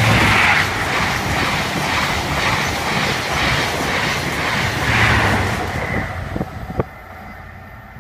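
Express passenger train passing close by at speed, with a rhythmic clatter of wheels over the rail joints. It is loudest at the start and again about five seconds in, then fades quickly about six and a half seconds in, leaving only faint noise.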